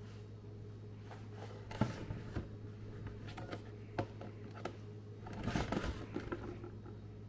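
A hand handling things at a plastic basket: scattered light clicks and scrapes, with a busier bout of rustling and clatter about five and a half seconds in, over a steady low hum.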